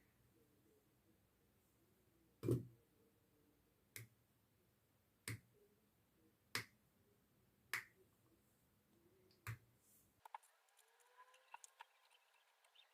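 Six sharp, separate clicks, about one every second and a quarter, the first the loudest. A few much fainter small clicks follow near the end.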